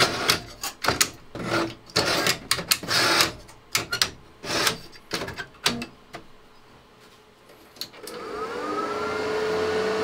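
Metal hard-drive sleds being slid into a Compaq ProLiant 3000 server's drive bays, with a run of sharp clicks and clacks as they seat and latch. About eight seconds in, the server powers on and its cooling fans spin up with a rising whine that levels into a steady rushing hum.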